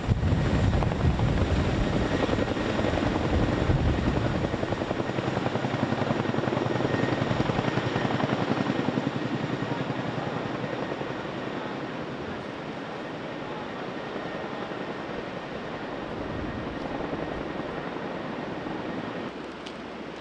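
Army CH-47 Chinook tandem-rotor helicopter flying with an underslung load, its rapid rotor beat and turbine noise loud at first and then fading steadily as it moves away. The sound drops sharply just before the end.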